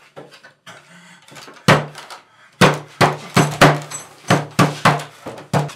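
Banging on a wooden door: one knock, then a fast, irregular run of about nine loud knocks.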